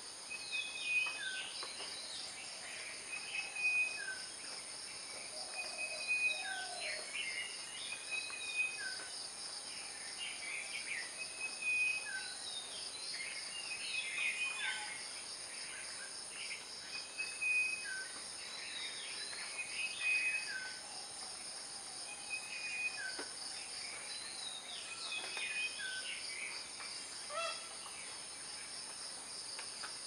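Steady high-pitched drone of insects, with a bird repeating a short call every two to three seconds: a brief level note followed by a lower, falling one.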